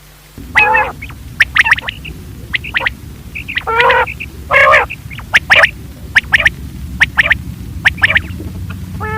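Common quail calling over and over: clusters of short, sharp, high notes, with a few longer, lower, rasping calls among them. A low steady rumble sits underneath from about half a second in.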